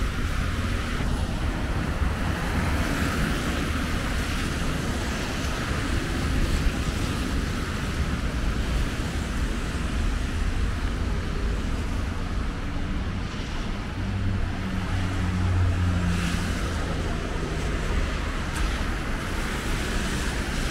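City traffic on wet asphalt: a steady hiss of tyres on the wet road over a low engine rumble. A vehicle's engine grows louder a little past the middle as it passes closer.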